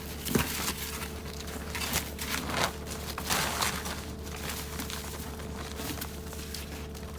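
Heavy plastic silage-bag sheeting crinkling and rustling as it is handled and pulled at, in irregular strokes that thin out over the last few seconds, over a steady low hum.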